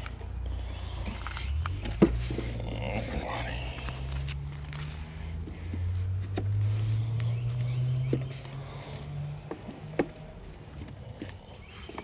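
Honey bees buzzing close to the microphone at an open hive, the hum slowly rising and falling in pitch, with sharp knocks and clicks from a hive tool working on the wooden frames, the loudest about two seconds in and again near ten seconds.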